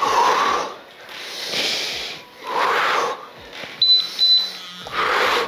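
Forceful exhalations in a steady rhythm, about one every second and a bit, with each rowing stroke of a seated exercise. Two short high beeps come about four seconds in.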